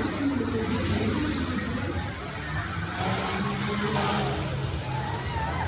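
Demolition derby car engines running.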